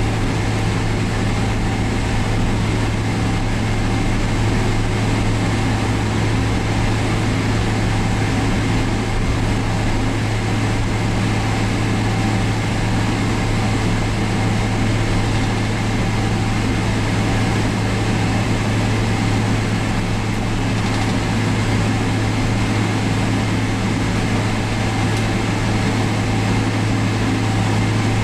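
Steady cabin noise inside a Boeing 777-300ER taxiing out for takeoff: a constant low hum under an even hiss of the cabin air supply.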